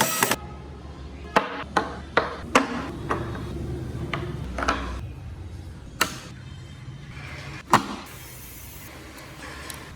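A running workshop machine cuts off just after the start, followed by a series of sharp, irregular taps and knocks, like light hammering while parts are fitted together; the loudest knock comes near the end.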